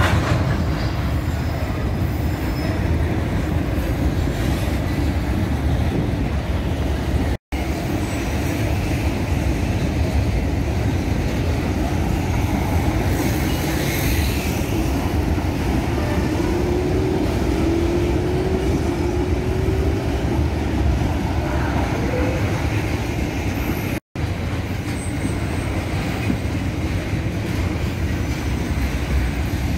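Freight wagons rolling past on the rails, a steady rumble of wheels and rattling cars, with a faint wheel squeal around the middle. The sound cuts out for an instant twice.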